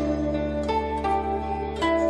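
Instrumental background music: a new note or chord about every half second over a held bass note.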